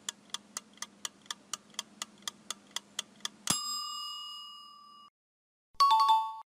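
Countdown-timer sound effect: sharp clock-like ticks about four a second, ending in a single loud bell ding that rings out and fades, marking time up. Near the end a short bright chime sounds.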